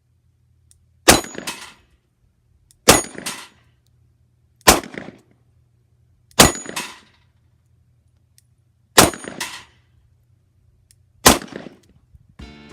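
Colt Agent .38 Special snub-nose revolver fired six times at an uneven pace, each shot followed a fraction of a second later by a second sharp hit with a short metallic ring, the bullet striking a steel plate.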